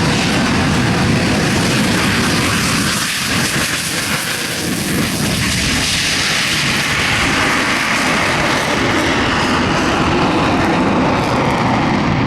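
Loud, steady jet noise from the CF-18 Hornet's two General Electric F404 turbofans in afterburner on takeoff. The noise dips slightly about four seconds in, then its hiss grows brighter.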